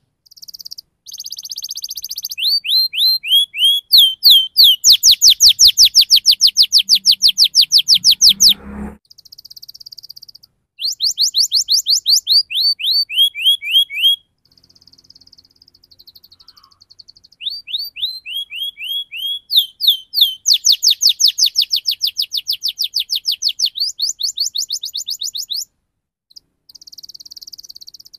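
Domestic canary singing a fast rolling song: long rapid trills of repeated falling notes, in phrases of a few seconds, with short pauses and softer buzzy passages between them.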